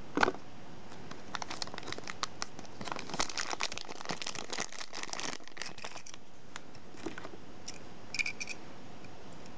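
Thin clear plastic bag crinkling and crackling as a small die-cast toy car is pulled out of it, after a single knock at the start. The crinkling is densest in the middle and thins out to scattered clicks, with a short cluster of clicks near the end.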